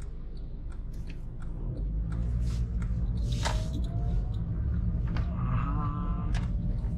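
Inside a car's cabin while driving: a steady low engine and road rumble that picks up about two seconds in, with a faint whine rising slowly in pitch twice and scattered light ticks and clicks.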